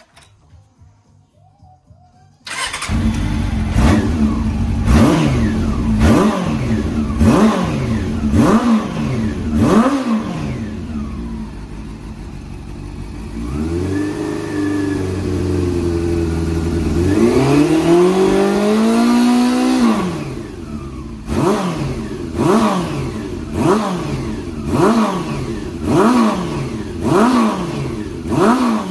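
Honda CB400 Super Bol d'Or's inline-four engine, breathing through a Yoshimura aftermarket muffler, starting about two and a half seconds in. It is then revved in quick throttle blips about a second apart, given one longer rev held for several seconds midway, and blipped quickly again near the end, dropping back toward idle between revs.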